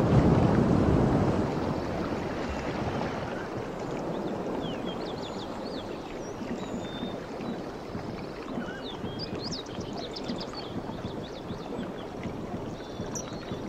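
Surf breaking on a beach with wind on the microphone, loudest in the first couple of seconds, with a few short high chirps scattered through the middle.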